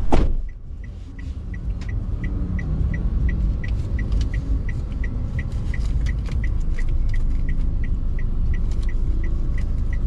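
A thump at the very start, then a car's indicator ticking steadily, about three clicks a second, over the low rumble of the car, which grows louder after a couple of seconds.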